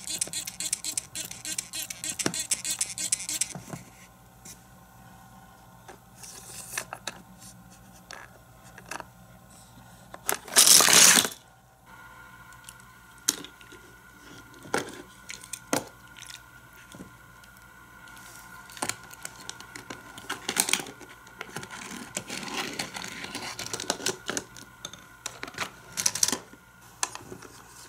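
A plastic toy water squirter hissing as it sprays water in short bursts, the loudest about eleven seconds in. Sharp plastic clicks and knocks come from the toy playset being handled between the sprays.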